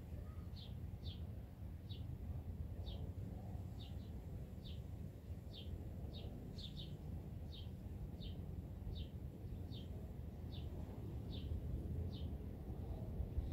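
A bird calling with a long run of short, high chirps, about one and a half a second, over a steady low rumble.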